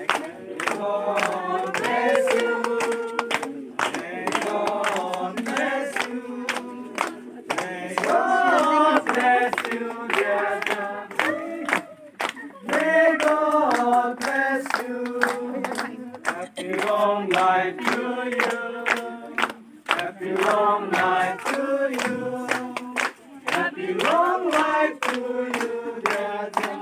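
A group of children and adults singing a birthday song together, with steady hand clapping in time with it.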